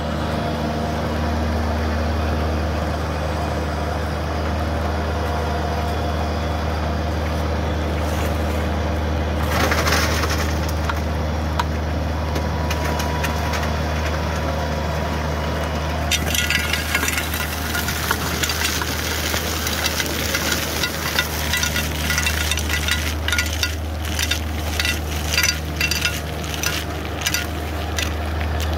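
A conveyor belt and a Bobcat S70 skid-steer loader running together, with a steady low hum and a brief burst of noise about a third of the way in. From about halfway, ash and rubble rattle and knock on the loaded belt in quick irregular clatters.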